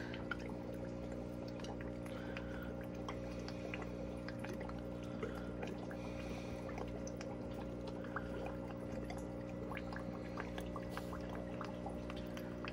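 Aquarium filter running: a steady low hum with water trickling and scattered small ticks.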